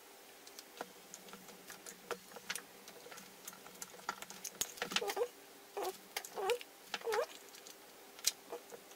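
Light clicks and taps of an electric drill's metal gearbox housing and parts being handled and pushed back together onto the motor body. About five to seven seconds in come four short squeaky sounds with a bending pitch, roughly half a second apart.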